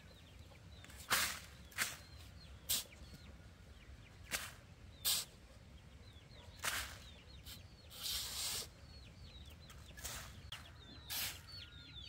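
Shovel scraping up and tipping loose soil onto a woven plastic sack, in short rasping strokes every second or so, irregularly spaced. Faint high, short falling cheeps of poultry run underneath.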